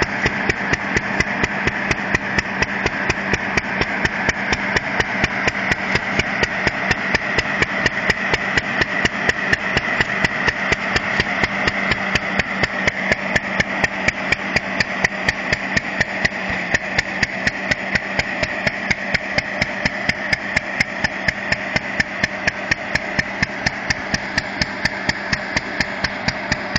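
Old single-cylinder stationary engine from a sheep-shearing machine running steadily under load, belt-driving a salvaged 1946 Ford truck fan that blows air into a grain silo. It gives an even train of sharp knocks, about three strong beats a second, over a steady whir.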